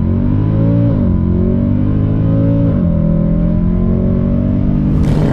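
Mercedes C63 AMG (W204) 6.2-litre V8 held at high revs on launch control, the engine note dipping and climbing back twice, about a second in and again near three seconds, before a change near the end.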